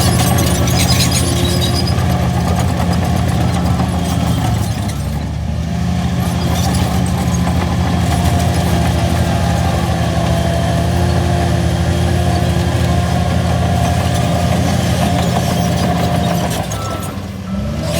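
Shantui DH17C3 LGP bulldozer's diesel engine running steadily while it works, with a thin whine over the engine note. The engine sound drops briefly about five seconds in and again near the end.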